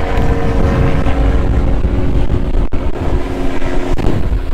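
A small helicopter flying past, its steady drone fading out about four seconds in, over heavy wind buffeting the microphone.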